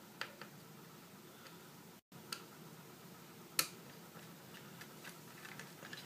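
Faint, scattered small clicks and ticks of a screwdriver turning out the screws of a MacBook Pro's hard-drive retaining bracket, metal tool on small metal screws, with one sharper click about three and a half seconds in.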